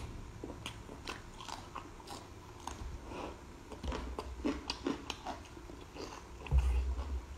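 Close-miked mouth noises of chewing and biting into braised squid: irregular wet smacks and small clicks. A low thump near the end is the loudest sound.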